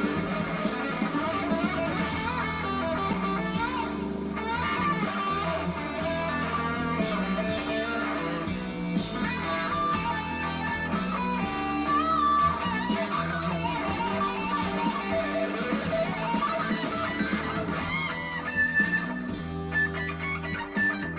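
Electric guitar playing a lead over a backing jam track with bass and drums, its held notes bending and wavering.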